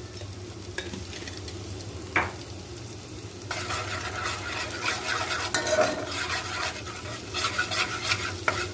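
Mashed garlic and dried coriander sizzling in hot oil in a pot, with a spoon stirring and scraping against the pot, busier from about three and a half seconds in.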